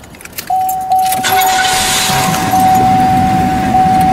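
Jangling clicks in the first second, then a single steady high tone held over a low rumbling noise.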